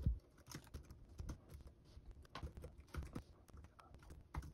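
Typing on a 2011 MacBook Pro's built-in keyboard: a run of irregular key clicks.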